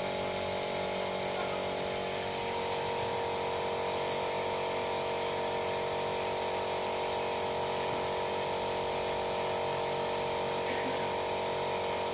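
Small electric motor running steadily: a constant high hum over hiss that strengthens slightly about two seconds in, from the powered tools of a resin-figure workshop.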